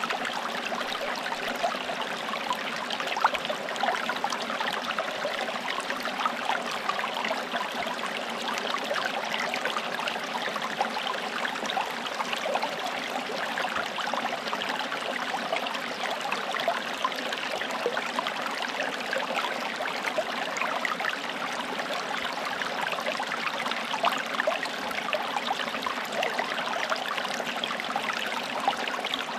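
Small forest stream running over stones, a steady babble and trickle of water with many small splashes.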